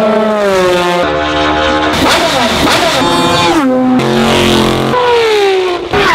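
Racing car engines at speed, edited together in short clips: loud engine notes mostly falling in pitch as cars pass or lift off, with the sound switching abruptly every second or so and several engine notes overlapping briefly in the middle.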